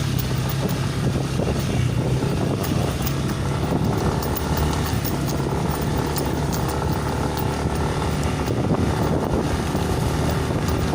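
Motorcycle engine running steadily while riding along a rough trail, with scattered short knocks.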